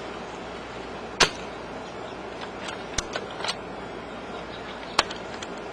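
Mauser SR Pro Tactical spring-powered bolt-action airsoft sniper rifle firing two sharp shots, about a second in and near the end. Between them, around the middle, comes a quick run of clicks and clacks as the bolt is worked to cock it for the next shot.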